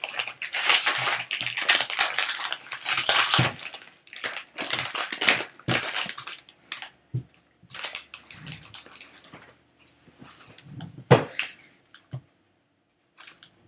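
Foil trading-card pack wrapper being torn open and crinkled, a dense crinkling for the first several seconds. Then scattered soft clicks and taps as the stack of cards is handled, with one sharper click near the end.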